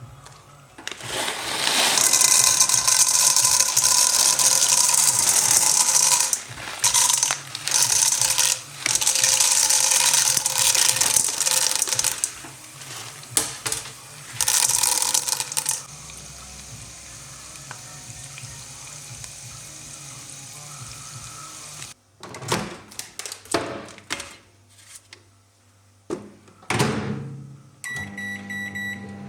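Kitchen sounds while making popcorn: a long loud rustling hiss, broken by short pauses, for about the first fifteen seconds, then a low steady hum with a few knocks, and near the end a microwave oven's short beeps over its running hum.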